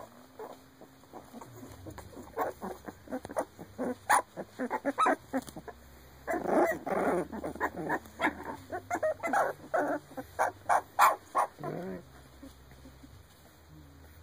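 19-day-old Shar Pei puppies giving a rapid string of short cries, with a longer cry lasting about a second just after six seconds in.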